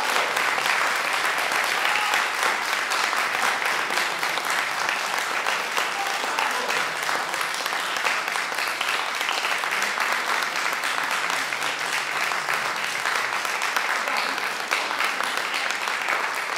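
Small audience clapping in a room, steady applause throughout.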